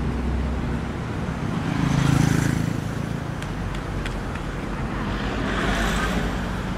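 Road traffic: cars passing close by one after another, engine hum and tyre noise swelling as each goes past, loudest about two seconds in.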